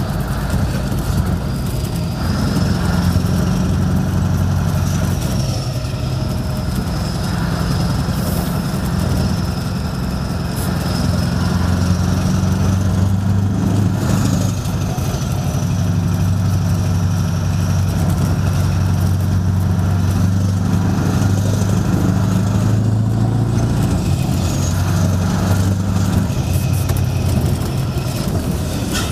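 Scania 164L's 16-litre V8 diesel with an open exhaust pipe, heard from inside the cab while driving at low speed: a deep, steady engine note that dips briefly a couple of times. A thin high whistle rises and falls above it.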